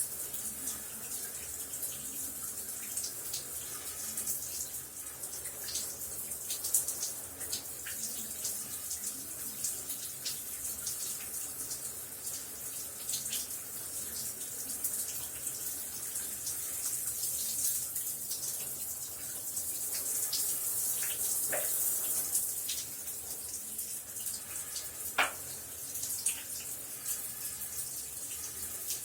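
Shower running steadily, its spray a continuous hiss with scattered sharper splashes and drips.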